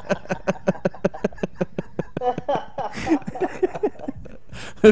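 A group of men laughing hard together: a fast run of rhythmic "ha-ha" pulses with breathy wheezes in between.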